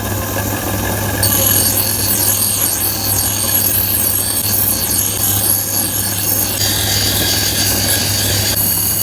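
Workshop power tool running steadily, with a constant low hum and a high whine whose pitch changes abruptly at a few points.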